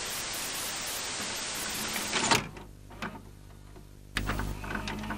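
Steady static hiss for about two seconds, then a run of sharp mechanical clicks and clunks over a low hum, with a low thud about four seconds in: a sound effect of a VHS cassette being loaded into a video cassette recorder.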